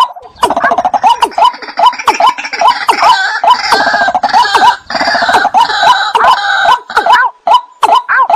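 Wetland birds calling together: a male watercock, a white-breasted waterhen and greater painted-snipe. A loud, clucking call repeats about twice a second, and from about half a second to about seven seconds in it is joined by a dense chorus of harsher, higher calls.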